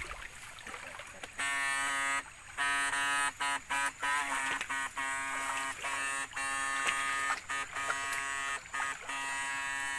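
Electrofishing stunner, carried in a wooden backpack box, buzzing with a steady hum that switches on and off repeatedly, starting about a second and a half in and broken by several short gaps and quick blips as the current is pulsed into the stream.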